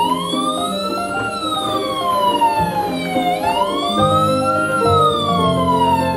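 Siren wailing in slow rises and falls, two full cycles, each rise taking about a second and each fall about two, over light background music.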